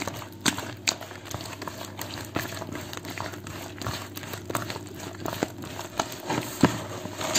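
Irregular soft crackling and clicking of flour, eggs, oil and melted margarine being mixed into baklava dough in a plastic bowl, over a low steady hum.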